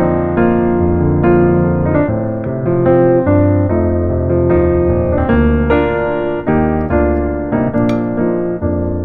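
Background piano music, notes and chords played at a steady, gentle pace.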